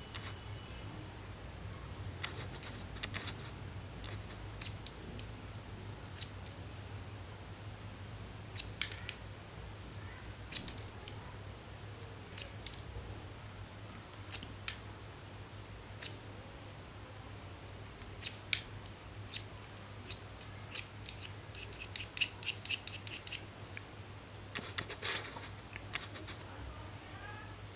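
Pencil being sharpened by hand with a cutting tool: scattered short, sharp snips and clicks, with a quick run of them a little past the middle, over a steady low hum.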